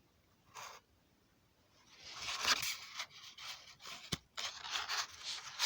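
Paper rustling and scraping, with a few sharp clicks: a book page being handled and turned. A short rustle comes about half a second in, then a longer bout of rustling from about two seconds in.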